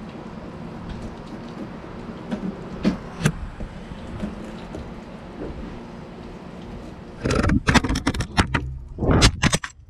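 Steady outdoor background noise with a few light clicks of a fillet knife on the cutting board. From about seven seconds in come loud, irregular knocks and rubbing of a GoPro camera being handled and moved, the loudest part.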